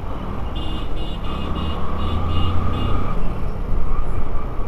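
Motorcycle riding in city traffic: steady low engine and road rumble, with a run of short high-pitched beeps, about three a second, through the first three seconds, and a steady higher tone in the middle.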